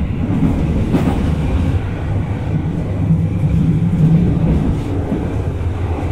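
Berlin U-Bahn H-class train running, heard from inside the car: a steady low rumble of wheels and running gear, with a sharp click about a second in and a low hum swelling in the middle.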